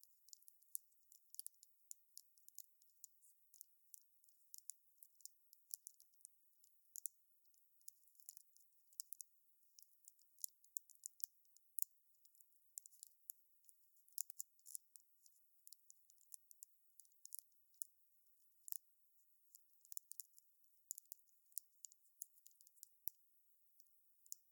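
Wood fire crackling: irregular sharp pops and snaps of burning firewood, several a second, with no roar of flame beneath.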